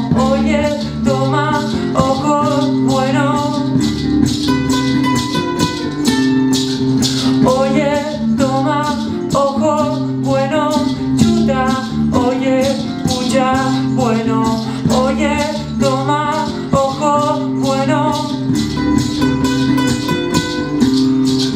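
Acoustic guitar strummed in a steady rhythm with a wavering melody line over it, from a live song.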